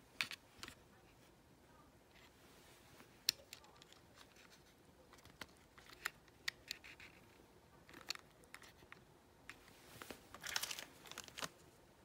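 Typing on a Moonlander keyboard with Gateron Pro white linear switches and low-profile keycaps: faint, irregular keystroke clicks, with a quick run of keystrokes about ten seconds in.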